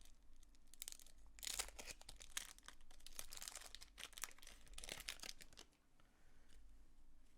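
Faint crinkling and tearing of wrapping as a box of baseball card packs is torn open. The crackling is densest in the middle of the stretch and dies down near the end.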